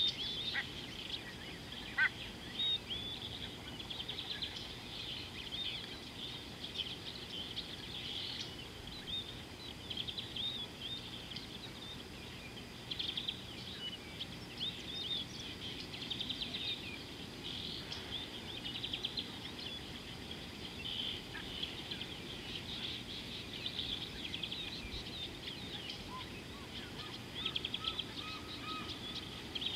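Small birds chirping and trilling in a dense, continuous high-pitched chorus over a steady low background hiss.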